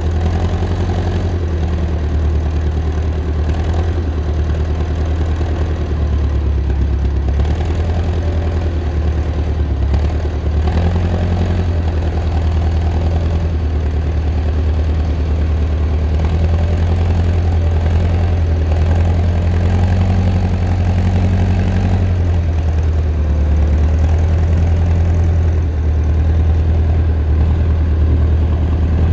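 Massey Ferguson 50HX backhoe loader's diesel engine running steadily with a deep low hum as the machine drives forward along a trench, growing slightly louder as it comes close.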